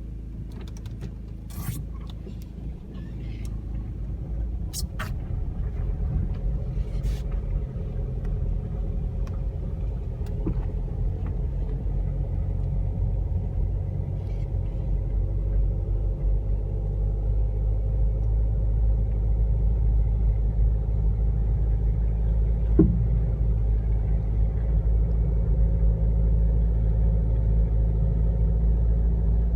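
A car running along the road with a steady low engine and road rumble, growing louder over the first several seconds as it picks up speed. A few sharp clicks come in the first seven seconds, and a brief squeak a little past two-thirds in.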